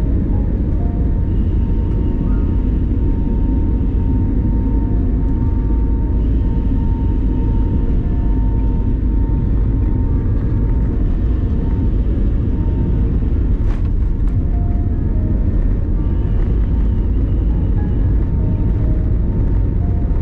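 Steady, loud cabin rumble of an Airbus A320neo under way, engine and airflow noise heard from inside the cabin, with a thin steady tone running through it.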